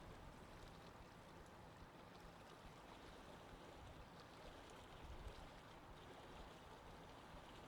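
Faint, steady wash of sea water with a low rumble underneath.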